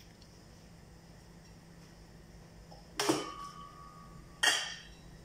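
Two sharp metallic clanks of stainless steel cookware being handled, about a second and a half apart; the first leaves a ringing tone for about a second. A faint steady hum lies underneath.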